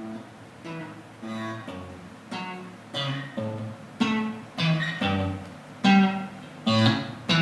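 Guitar strumming chords at about two strokes a second as a song intro, growing louder about four seconds in.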